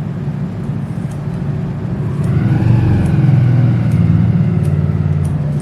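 A motor vehicle engine running with a low, steady hum that swells and rises in pitch in the middle, with faint clicks over it.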